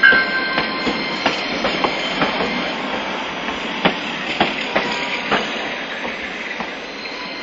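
Nagasaki Electric Tramway 5000-series low-floor articulated tram passing close by, its wheels knocking in an irregular series of clunks over rail joints and points. The running noise fades as the tram pulls away.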